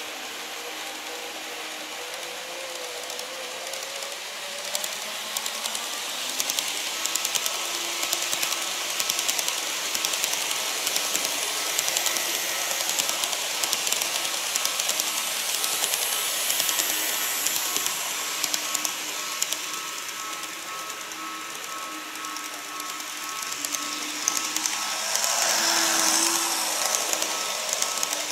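Model electric trains running on the layout track: a steady motor whine with fine rapid clicking of the wheels over the rails as an E257 series model passes. Near the end it gets louder as an E233 series 3000 model runs past close by.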